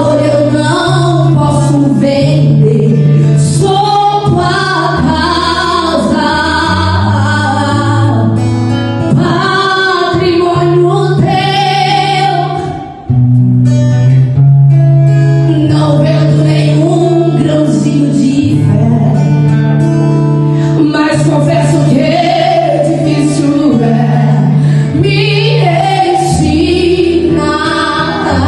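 A song: a woman singing a slow melody over acoustic guitar and sustained bass notes, in a gospel style.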